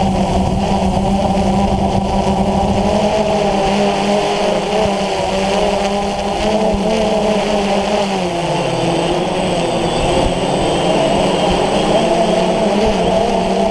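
DJI Phantom FC40 quadcopter's four motors and 9450 propellers whining in flight, heard from the GoPro mounted on the drone, with several tones that waver together, dip around eight seconds in and climb back, over a low rush of air.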